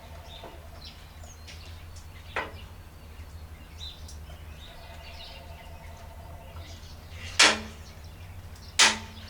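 Three sharp knocks, a lighter one and then two loud ones about a second and a half apart near the end, over birds chirping and a low steady hum.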